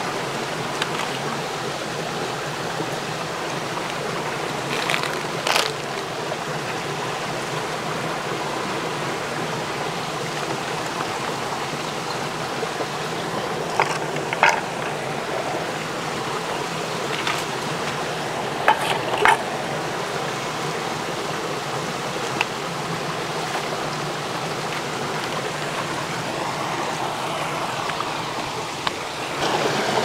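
Steady rushing of a flowing stream, with a few sharp knocks or clicks now and then.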